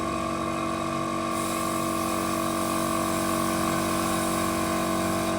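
Steady mechanical whine and hum with several held tones, joined by a hiss about a second in.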